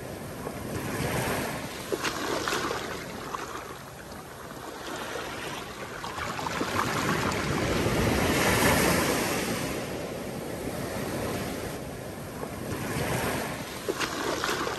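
Small waves breaking and washing up onto a sandy beach, the surf swelling and ebbing, loudest about halfway through.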